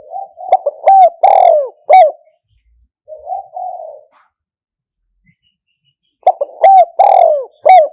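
Spotted dove cooing: a loud phrase of several coos at the start and another from about six seconds in, with a softer coo between them.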